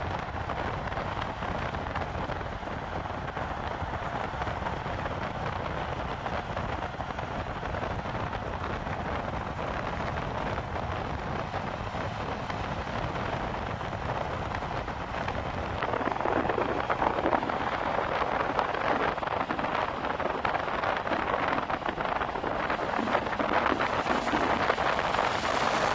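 Steady rush of wind and tyre noise from vehicles moving at highway speed, growing a little louder about two-thirds of the way through.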